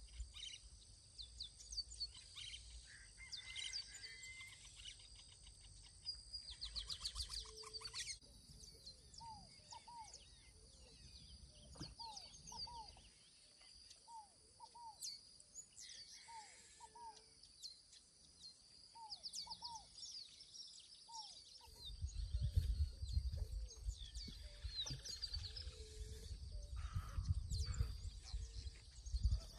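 Outdoor birdsong: scattered high chirps and a short, low whistled call repeated every second or two, over a steady high-pitched hum. A low rumble comes in for the last several seconds.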